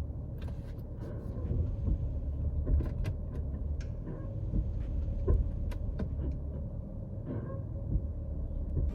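BMW M3 Competition G80's twin-turbo straight-six idling steadily, with several sharp clunks from the rear axle as the car is put into gear. The clunking persists after the propeller shaft was re-greased and re-torqued, which the mechanic takes for a rear differential problem.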